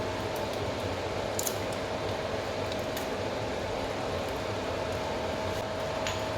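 Steady hiss with a constant hum underneath, and a few faint clicks.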